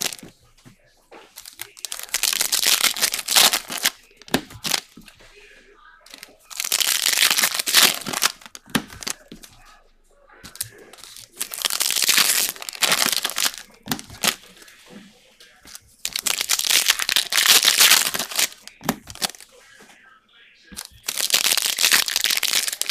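Foil wrappers of trading card packs being crinkled and torn open by hand, in about five rustling bursts a few seconds apart.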